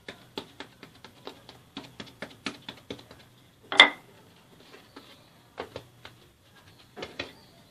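Wooden rolling pin worked back and forth over a block of laminated croissant dough on the worktop, giving a quick run of light knocks, several a second. Just before halfway comes one sharper, louder knock as the pin is put down on the worktop. A few softer knocks follow near the end as the dough is squared up by hand.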